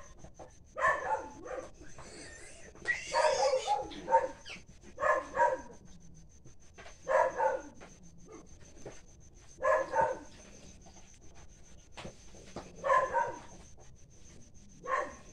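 Short animal calls repeated every two to three seconds, sometimes two or three in quick succession.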